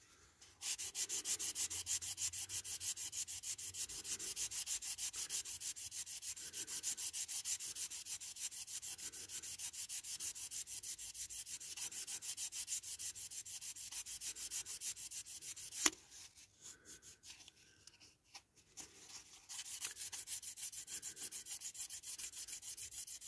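A multi-grade nail buffer block rubbed in quick, even back-and-forth strokes over a clear plastic model-car window unit, using the buffer's third grade to sand scratches out of the plastic. Just before 16 seconds there is a click and the rubbing stops for about three seconds, then starts again.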